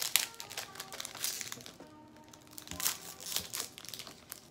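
Thin plastic snack wrapper crinkling and crackling in irregular bursts as an individually wrapped cookie packet is worked open by hand, over soft background music.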